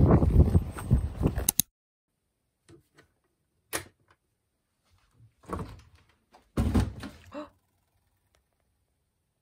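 Loud rustling and footstep noise from walking on a paved path, cut off abruptly about a second and a half in. Then an electric kettle's switch clicks once, and a fridge door is pulled open with a couple of dull thuds.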